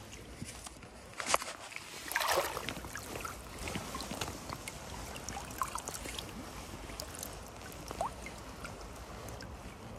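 Shallow river water splashing and sloshing as a large salmon is handled and lifted in it, with a short splash about two seconds in and dripping and trickling water afterwards.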